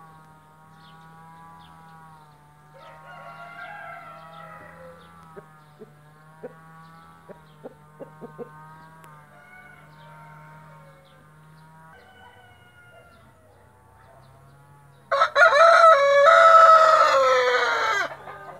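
White splash Brahma rooster crowing once near the end, a loud call of about three seconds that drops in pitch as it fades. Before it, quieter short sounds over a steady low hum.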